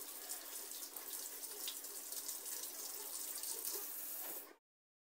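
Kitchen faucet running, with hands being rinsed under the stream: a steady splashing hiss that cuts off suddenly about four and a half seconds in.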